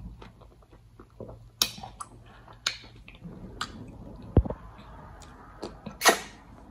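Close-up wet eating sounds: slimy okra and egusi soup sucked and smacked off the fingers, with chewing and a few sharp lip smacks.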